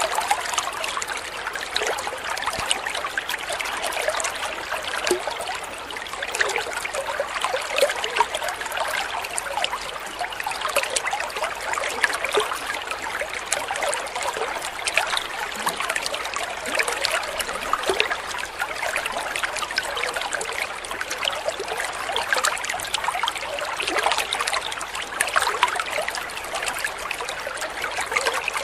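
Water spilling from an inflow spout into a koi pond: a steady, unbroken trickling and splashing.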